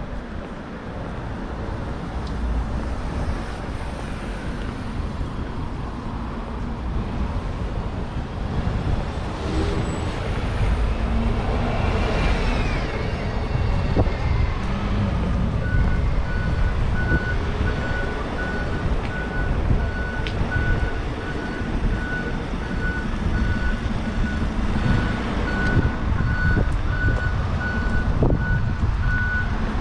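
Road traffic on a busy street: vans and cars driving past with a steady low rumble, one vehicle passing close about twelve seconds in. From about halfway, a high electronic beep repeats at an even pace.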